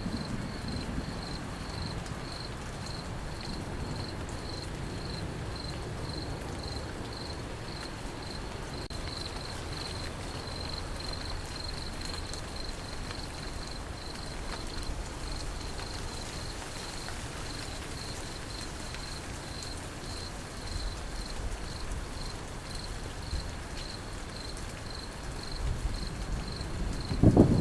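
Crickets chirping steadily in an even pulse of about two or three chirps a second, over a steady hiss of rain. A low rumble of thunder builds near the end.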